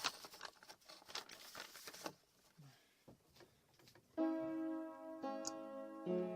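Crackling, rustling noise for about two seconds, then a pause. About four seconds in, a piano begins a slow prelude with sustained chords, changing about once a second.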